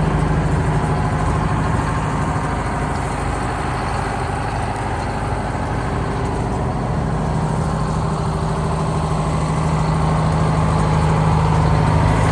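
Two-stroke Detroit Diesel engine of a Schramm air-hammer tractor idling steadily, a little quieter in the middle and louder again near the end.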